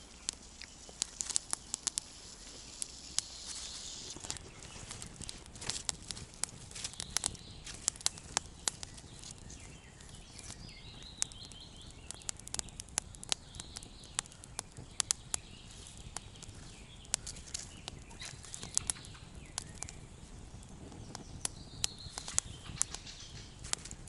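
Small campfire of dry deadwood crackling, with irregular sharp pops and snaps.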